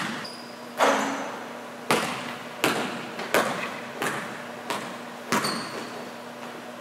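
Basketball dribbled on a gym floor, a sharp bounce about every 0.7 s, each echoing in the large hall, with a couple of short sneaker squeaks.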